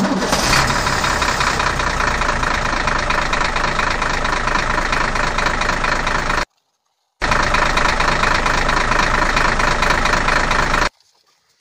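Truck engine running steadily at an even pitch, most likely a dubbed-in sound effect. It cuts off abruptly twice, for under a second each time, then resumes.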